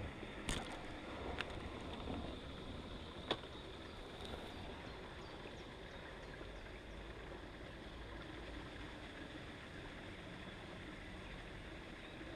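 Steady outdoor background hiss with low wind rumble on the microphone, broken by three sharp clicks in the first few seconds.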